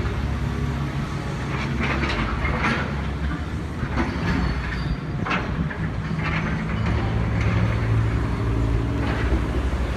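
Wind buffeting the microphone in a steady low rumble, over the sound of city street traffic passing by.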